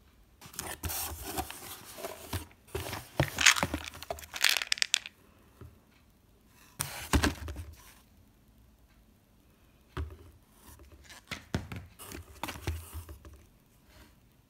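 A cardboard box being rummaged and plastic supplement bottles handled and lifted out, making rustling, crinkling and scraping noises in three bursts: a long one in the first few seconds, a short one about seven seconds in, and another from about ten to thirteen seconds.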